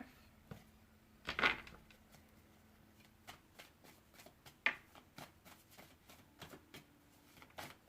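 Tarot cards being shuffled and handled: a run of soft flicks and rustles, with a louder swish about a second and a half in and a sharp snap near five seconds.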